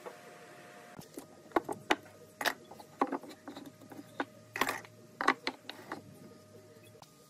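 Wooden pieces and a metal bar clamp being handled on a wooden workbench: about a dozen sharp, irregular knocks and clatters over roughly five seconds as blocks are set down and the clamp is fitted.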